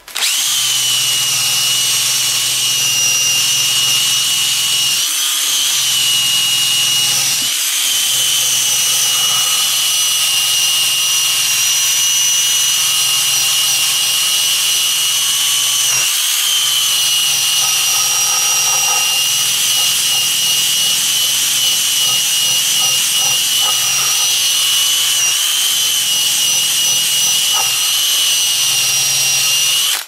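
Cordless drill spinning a buffing mop against the aluminium body of a Kirby vacuum cleaner, polishing it with metal polish: a steady high-pitched motor whine that eases off briefly a few times and cuts off at the end.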